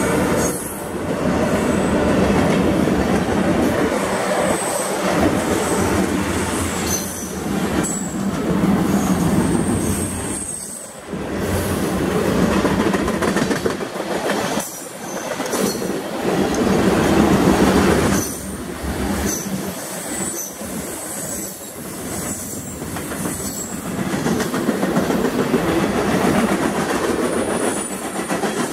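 CSX freight train's cars rolling past: a steady rumble of steel wheels on the rails, swelling and easing, with short high-pitched wheel squeals now and then.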